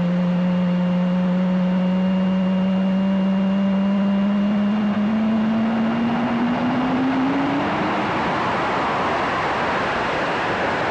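Jet engine sound effect: a turbine whine rising slowly in pitch, giving way about eight seconds in to a broad rushing noise.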